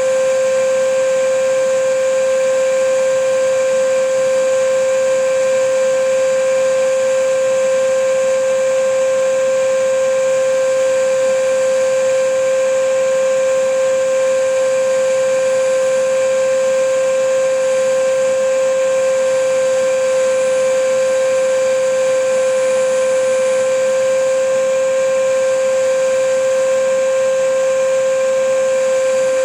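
Vacuum cleaner running at a steady pitch: a constant motor whine over an even rush of air.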